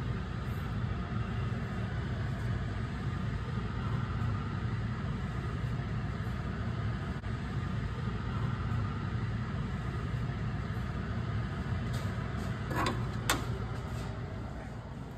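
Steady low hum, with a few sharp clicks and scrapes near the end as a spatula knocks against the plate and the frying pan while meat is spooned onto a baked potato.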